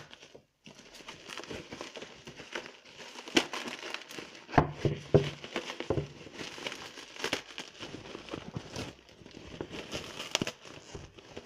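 Bubble wrap crinkling and rustling as it is pulled off and unwrapped by hand, with scattered sharp crackles and taps.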